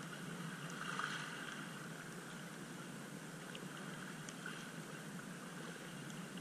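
Choppy sea water lapping and splashing close by, a steady hiss with a few faint ticks.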